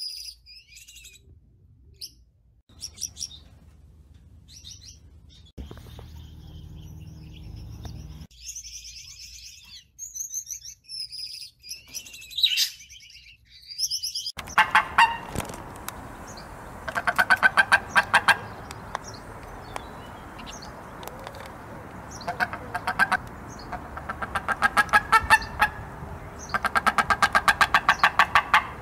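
Gouldian finches giving scattered thin, high-pitched chirps and short twitters. About halfway through this changes to a wedge-tailed eagle calling: several runs of rapid, quickly repeated notes over a faint steady hiss.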